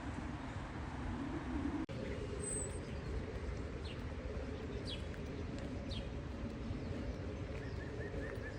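Outdoor ambience: a steady low background rumble, with several short high bird chirps in the middle and a quick run of small chirps near the end. The sound drops out for an instant about two seconds in.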